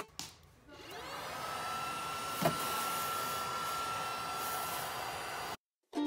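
Cuckoo InsPure PowerClone cordless stick vacuum running with a steady high whine, rising in pitch as it comes up to speed about a second in. There is one short knock partway through, and the sound cuts off suddenly near the end.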